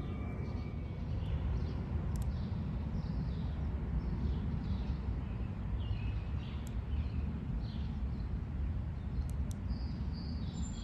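Songbirds chirping over and over above a steady low outdoor rumble.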